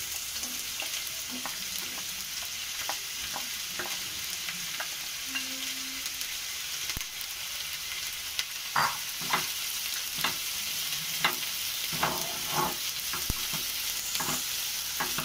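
Sliced onions sizzling in hot oil in a non-stick frying pan, a steady hiss. From about halfway on, a spatula knocks and scrapes against the pan as the onions are stirred.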